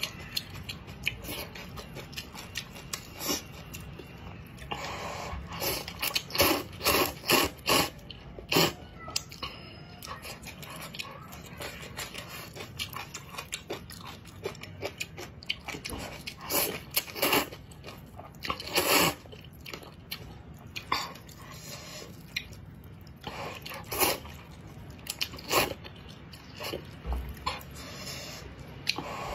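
Close-up eating of spicy noodles: short, repeated slurps and chewing, coming in irregular clusters with quieter stretches between.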